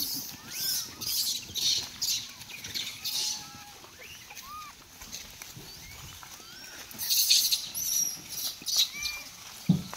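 Dry leaf litter crunching and rustling in quick irregular bursts as monkeys and a person move through it, busiest about seven seconds in, with short rising-and-falling chirping calls scattered throughout.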